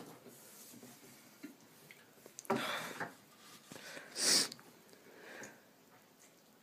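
People breathing hard and sniffing through the burn of a ghost pepper (Bhut Jolokia), with two louder sharp breaths about two seconds apart, the second a hiss drawn through the teeth.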